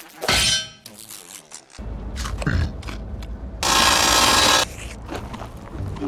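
Animated-film sound effects: a short loud noisy burst about half a second in, then a low steady rumble under scattered small knocks, with a loud hiss lasting about a second midway.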